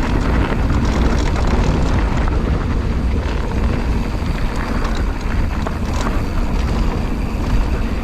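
Pivot Switchblade 29er mountain bike running fast down a dirt bike-park trail: steady wind rush on the camera's microphone over the rumble of the tyres, with scattered clicks and rattles from the bike.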